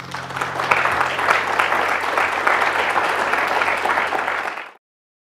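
Audience applause: many hands clapping at once, running steadily and then cutting off suddenly near the end.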